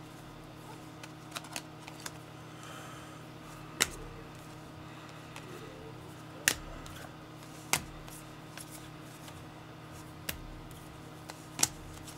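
Trading cards being handled and flipped through: a handful of sharp clicks and snaps a second or two apart, over a faint steady hum.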